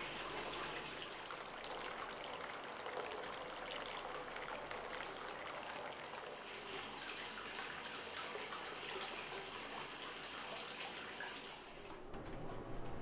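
Running water trickling steadily, with small drips and splashes. About twelve seconds in, the sound dips and cuts to something different.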